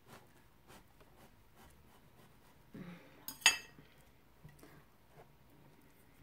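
A knife cutting through a watermelon wedge with faint crisp ticks, then one sharp metallic clink a little over three seconds in as the knife is set down.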